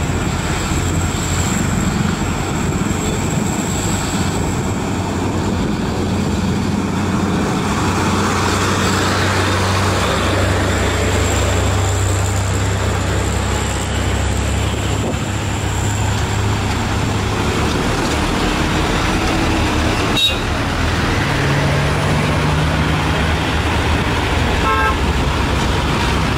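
Heavy diesel trucks, Mitsubishi Fuso and Hino among them, pulling slowly up a steep grade under load, making a steady low engine drone, with other road traffic passing.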